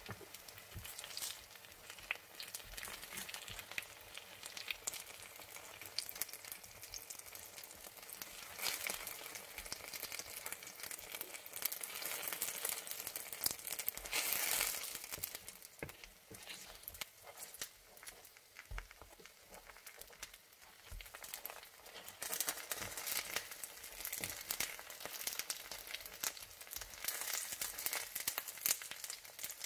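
Apple turon (apple-filled spring rolls) frying in shallow oil and caramelised sugar in a pan, sizzling with a steady hiss full of sharp crackles and clicks. The sizzle is louder for a few seconds about halfway through.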